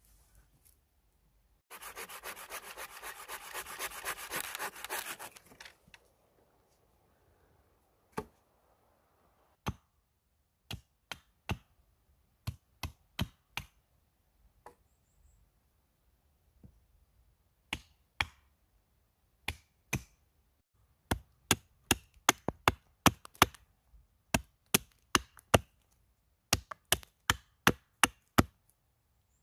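Hatchet chopping a wooden stick: single sharp strikes a second or two apart, then quick runs of about three strikes a second near the end. It starts with about four seconds of rapid, rasping scraping on wood.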